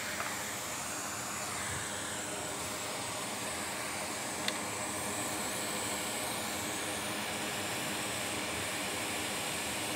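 Hot air rework station blowing a steady stream of hot air over a surface-mount capacitor to reflow its solder so the part settles flat on the MacBook logic board, with one faint tick about halfway through.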